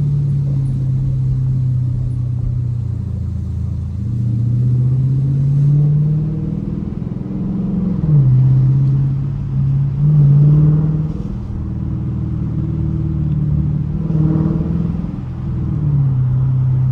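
Dodge Challenger R/T's Hemi V8 exhaust heard from inside the cabin with the windows partly down, the revs rising and falling as the car is driven. The pitch drops sharply about eight seconds in, and there are louder bursts of throttle just before that and around ten seconds in.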